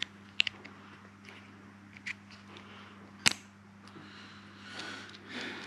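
Faint handling clicks of a plastic wiring-loom connector on a fuel pressure sensor, with one sharper click about three seconds in, over a steady low hum.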